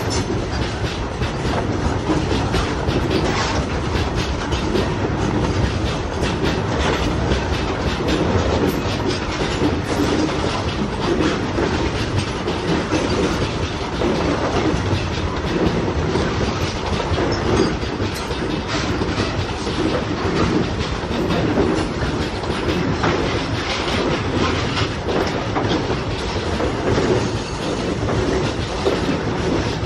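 Freight train of covered goods wagons rolling past at close range: a steady rumble of steel wheels on the rails with continuous clicking and clatter from the wheels and couplings.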